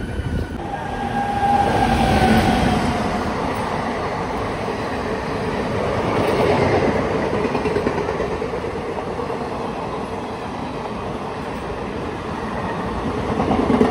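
Blue ICF passenger coaches of an Indian Railways express train rolling past along a station platform, with a steady noise of wheels running on the rails. The noise swells and eases as the coaches go by.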